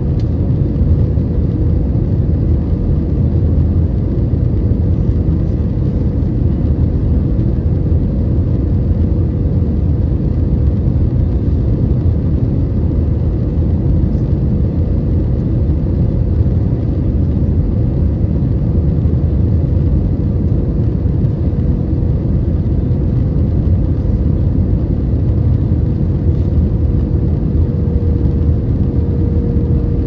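Steady airliner cabin noise heard from a window seat: jet engines and rushing airflow, with a steady hum tone running through it, as the airliner descends on approach to land.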